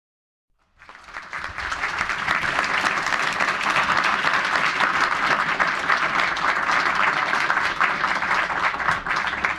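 Audience applauding: the clapping starts about a second in, builds quickly, holds steady, and begins to die down at the very end.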